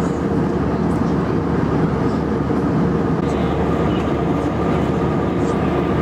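Steady roar of jet engines and rushing air inside an airliner cabin in cruise, with a faint steady hum of engine tones on top.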